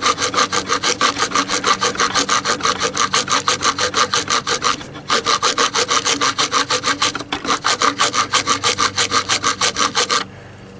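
Serrated knife edge of a survival hatchet multi-tool sawing back and forth through wood in quick, even strokes, about five a second, with a short pause about five seconds in. The strokes stop shortly before the end.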